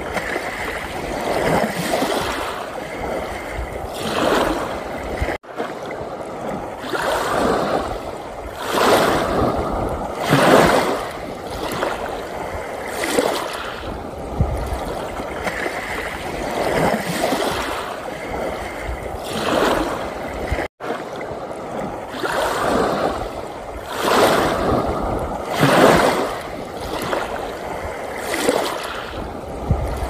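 Small sea waves washing up and draining back on a sandy shore, a surge of water every couple of seconds. The sound cuts out for an instant twice, about five and about twenty-one seconds in.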